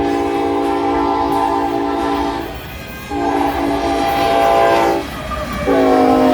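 Train horn blowing three blasts, each a chord of several notes: a long blast of about two and a half seconds, a second of about two seconds, then a third starting near the end that bends slightly in pitch as it begins.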